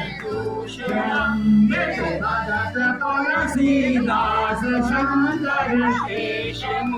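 A man leading a devotional song (bhajan) into a microphone over a sound system, with other voices singing along.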